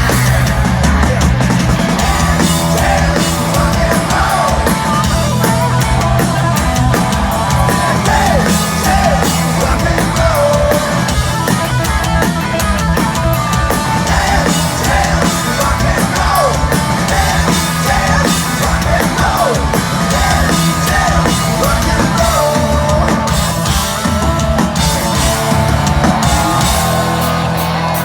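Loud live hard rock band playing, with drum kit and electric guitars, and a voice yelling and singing over it.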